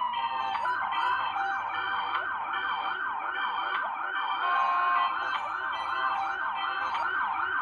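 Toy police car's electronic siren wailing in a fast, even up-and-down warble, about three sweeps a second.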